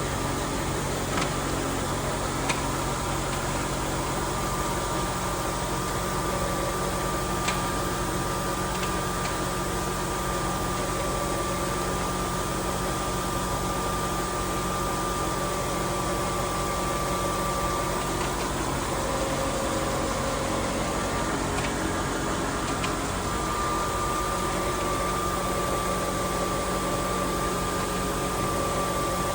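Steady machinery hum with a thin high whine, unchanging throughout, broken by a few faint clicks.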